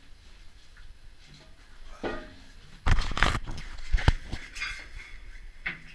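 Knocks, thumps and rustling as a diver in a drysuit climbs through the round hatch of a diving chamber, body and boots bumping the hatch rim; the loudest thumps come about three seconds in, with a sharp knock a second later.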